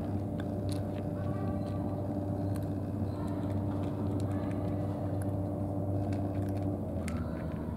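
A steady low engine drone, with a higher hum above it that fades out near the end. Faint scattered clicks run over it, from a cat eating out of a plastic tray.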